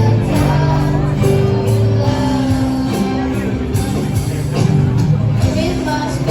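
Music with singing and guitar: a song playing.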